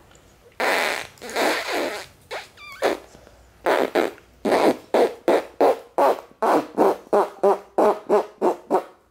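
Fake fart noises: two long drawn-out blasts, then a quick string of short ones at about three to four a second.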